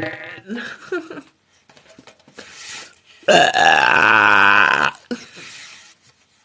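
A person burping: a few short, softer burps, then one long, loud burp of about a second and a half starting a little over three seconds in, its pitch wavering as it goes.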